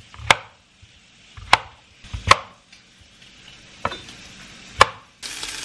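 Kitchen knife slicing a large white button mushroom on a plastic cutting board: five sharp knocks of the blade meeting the board, roughly a second apart. Just before the end, bacon starts sizzling in a frying pan.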